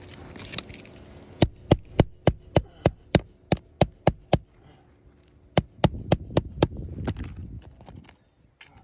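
Hammer striking a precision nail puller to work its jaws under a roofing nail in an asphalt shingle. There are about a dozen quick metal strikes, about three a second, then a short pause and five more, with a high metallic ring held through them.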